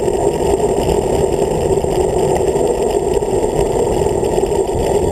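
Steady, muffled wind rush and road rumble on a handlebar-mounted camera as a road bike rolls along at speed.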